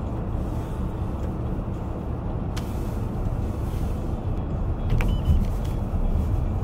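Steady low rumble of a car's engine and tyres heard from inside the moving car, with a sharp click about two and a half seconds in and another about five seconds in.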